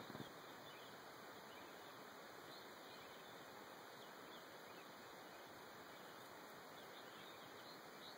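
Near silence: a steady faint outdoor hiss with a few faint, brief high chirps now and then.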